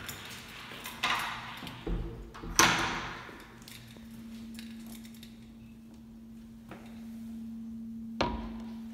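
Footsteps and the clatter of a restroom stall door being handled, with one loud metal bang about two and a half seconds in and another knock near the end, over a steady low hum.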